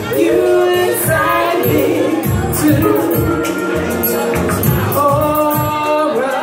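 A woman sings live into a handheld microphone over a karaoke backing track, holding long, bending notes. The accompaniment has a steady beat.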